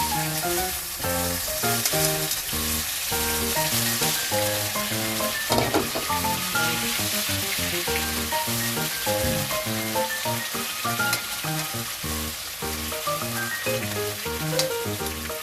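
Danggit, dried fish, frying in hot oil: a loud, steady sizzle that starts suddenly as the frying begins, with background music with a steady beat underneath.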